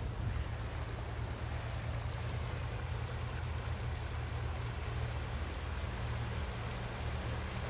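Steady rush of a high, flowing river, with a low steady hum underneath.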